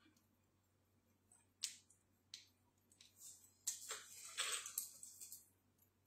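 Faint small clicks and scratchy rustles of fingers fastening a screw-back earring at the ear: a click or two in the first half, then a cluster of rustling clicks through the middle.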